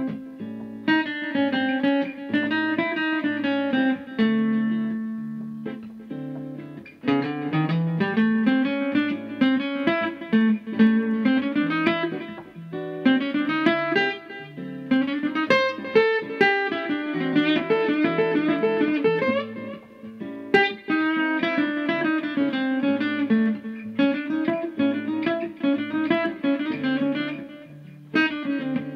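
Steel-string acoustic guitar improvising a jazzy single-note line on the MixoBlues scale in swung notes, with a held note around five seconds in.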